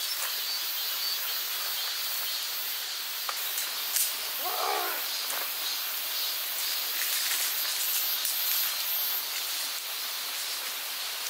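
Outdoor campsite ambience: a steady high hiss, with a few light clicks, the loudest about four seconds in, and one short pitched sound just after it.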